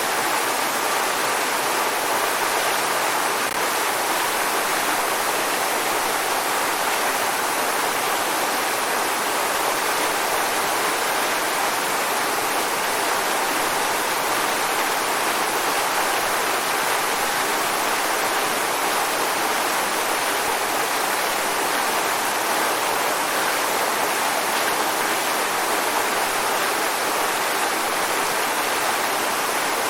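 Waterfall: water falling and rushing in a steady, unchanging hiss.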